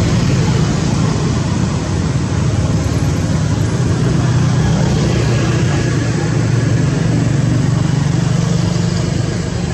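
Steady, loud motor vehicle noise, a low engine drone with a haze of road noise over it, easing slightly near the end.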